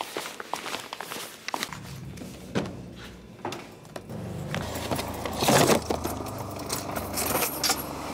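Footsteps on a hard floor, then the rustle and clunks of a person opening a car door and getting into the car, with a louder rustling burst past the middle. A steady low hum sets in about two seconds in.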